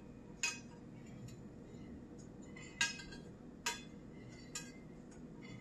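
Metal spoon clinking against the side of a glass baking dish while stirring liquid gelatin, several sharp separate clinks with a brief ring, the loudest about three seconds in.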